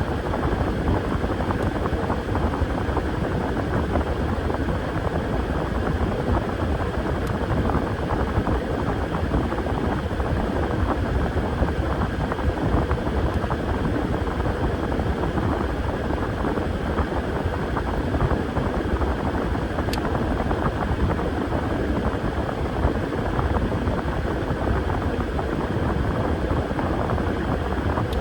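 Washing machine running: a steady mechanical noise with no break.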